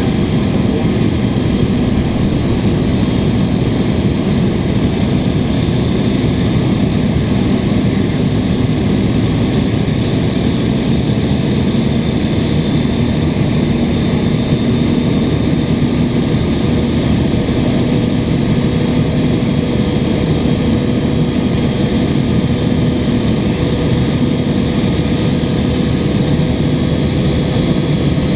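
Cummins ISL diesel of a 2005 Gillig Phantom transit bus running steadily, heard from inside the bus, its sound coloured by an exhaust leak. The air conditioning blows steadily along with it.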